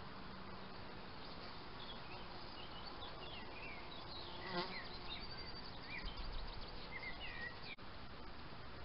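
An insect, a fly or bee, buzzing close to the microphone, loudest for a moment about halfway through, over short high chirping calls.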